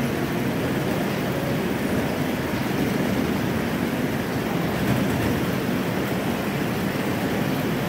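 Schrauwen bare-root tree grading machine running, a steady mechanical rumble with no break or change.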